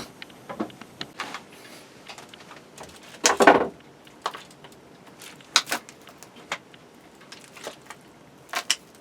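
Scattered clicks and knocks of things being handled, with a louder scraping rustle about three and a half seconds in and a quick double knock near the end.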